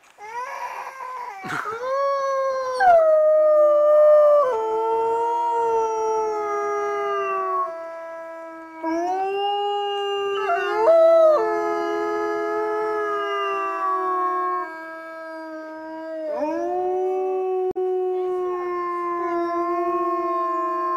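Grey wolves howling in chorus, set off by the zoo's morning announcement. Two or more long howls overlap, each sliding and falling in pitch, with one lower voice held fairly steady through most of it while others rise in and fall away.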